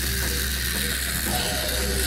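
A battery-powered remote-control toy's small electric motor and plastic gears running with a steady buzzing whir.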